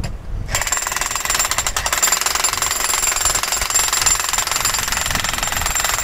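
Jackhammer hammering at concrete, a rapid, steady rattle of blows that starts about half a second in.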